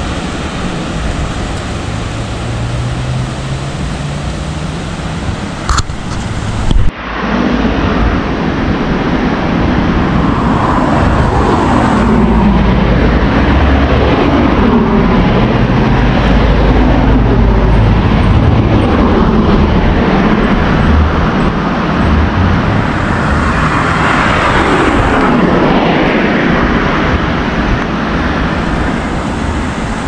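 Steady outdoor rush of wind and surf with a motor vehicle's engine going past, its pitch rising and falling, and wind buffeting the microphone. A sharp knock about seven seconds in, after which the sound is louder.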